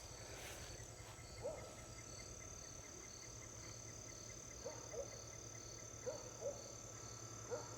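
Faint outdoor insect chorus: crickets trilling steadily with a fast, even ticking, and a few short faint chirps scattered through it.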